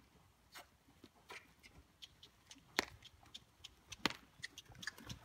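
A horse being ridden at a walk in a dirt round pen: faint, irregular sharp clicks and taps of hoof falls and tack, the two loudest about three and four seconds in.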